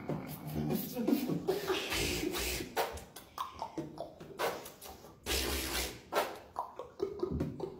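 Beatboxing: a vocal percussion beat of sharp mouth-made snare and hi-hat clicks over kick drums, with two long deep bass booms, the first about two seconds in and the second past the midpoint.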